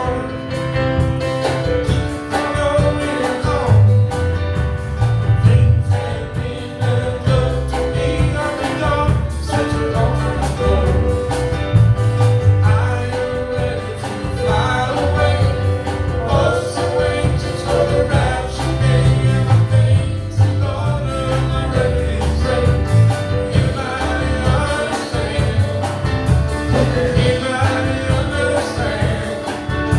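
Gospel song sung over instrumental backing, with a pulsing bass line.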